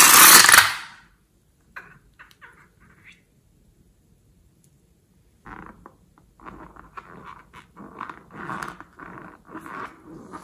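A loud hiss of a cut balloon emptying out through its neck, cutting off about a second in. From about five seconds in, rubber squeaks and rubbing as hands squeeze and handle a liquid-filled balloon.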